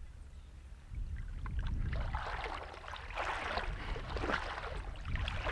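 Shallow seawater sloshing and splashing around the legs of someone wading knee-deep, starting about a second and a half in, over a low wind rumble on the microphone.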